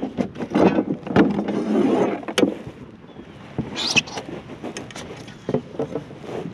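Knocks, taps and rubbing from handling a freshly caught sheepshead on the boat while it is laid out to be measured, with wind on the microphone. The knocks are densest in the first couple of seconds, and a short high squeak comes about four seconds in.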